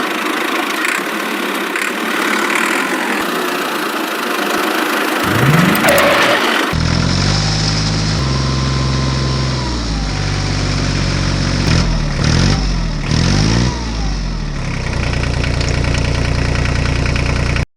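An engine running and revving, its pitch stepping and sweeping up and down, after several seconds of hissing noise; it cuts off abruptly at the end.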